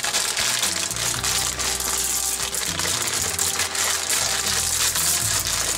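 Dry tube pasta poured into a pot of broth, pattering and splashing into the liquid with a dense spray of small ticks, over soft background music.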